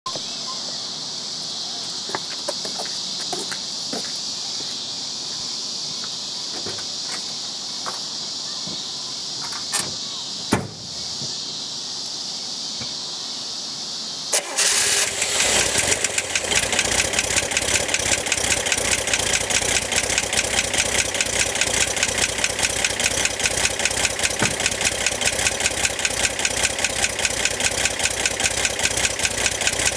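A steady high hiss with a few sharp clicks, then about halfway through the 1965 Corvair's air-cooled flat-six starts and settles into an idle with a fast, even ticking pulse. The tick comes from the top of the engine near the cooling fan, and tightening the fan belt has only slightly reduced it.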